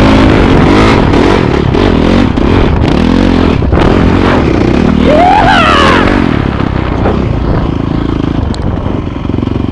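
Dirt bike engine revving up and down while riding, heard from a helmet camera with rough wind rush and rattle. The revs climb sharply about five seconds in, then the engine runs steadier and a little quieter.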